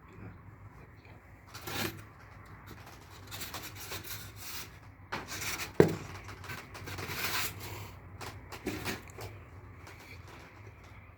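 Intermittent rubbing and scraping sounds in a small room, several noisy strokes a second or so long, with one sharp knock about six seconds in.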